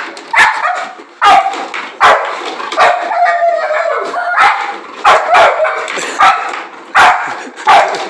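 Dog barking over and over, about nine sharp barks in quick runs, with one longer drawn-out call about three seconds in. The dog is worked up while chasing the ball on a foosball table.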